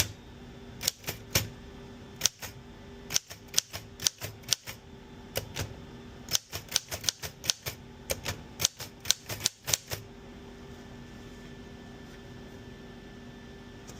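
Keys of a WW2-era Remington 5 manual typewriter striking in an irregular run of sharp clacks as a line is typed; the typing stops about ten seconds in, leaving a steady low hum.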